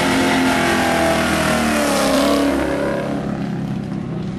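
A car's engine revving hard as the car accelerates past. The engine note holds high, then drops in pitch and fades about two and a half seconds in as the car pulls away.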